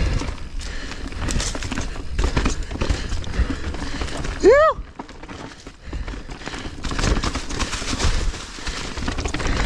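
Mountain bike rolling fast down a leaf-covered dirt singletrack: tyre noise, knocks and rattles of the bike over bumps, and wind on the helmet microphone. About halfway through comes one short, loud pitched sound that rises and falls.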